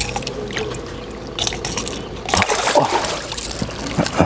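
Water splashing and trickling as a sea bass held by a lip grip is worked at the surface and lifted from the water.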